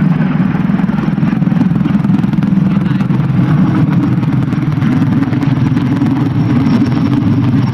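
Steady, loud, low engine drone with no change in pitch or level.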